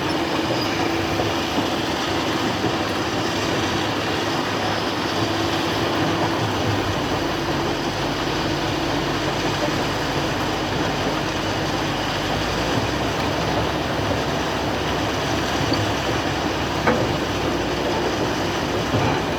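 Excavator's diesel engine and machinery running steadily, a loud, even mechanical noise; the low rumble grows heavier about seven seconds in and again near the middle, and a short sharp knock comes near the end.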